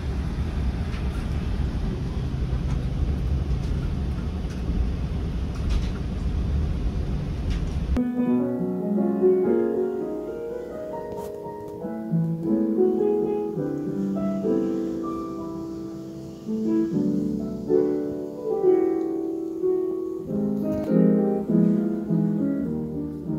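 Steady roar of a jet airliner heard inside the passenger cabin, which cuts off suddenly about eight seconds in. It gives way to gentle instrumental music with piano-like notes.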